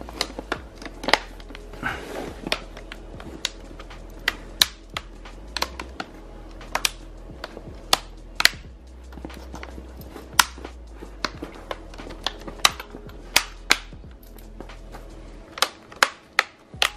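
Plastic clips of a Lenovo N42 Chromebook's screen bezel snapping into place one after another as it is pressed around the display: a long run of sharp, irregular clicks.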